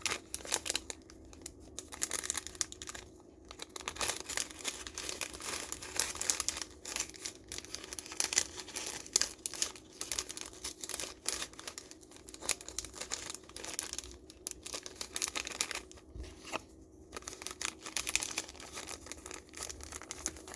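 Mail packaging being handled and torn open: continuous irregular crinkling and rustling with tearing.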